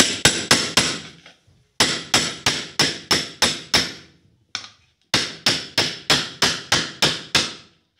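Light hammer taps on a steel gudgeon pin used as a drift, pressing a ball bearing into its seat in a ceiling fan's rotor plate. The sharp metal-on-metal taps ring briefly and come in three quick runs of about four a second, with a single tap between the second and third run.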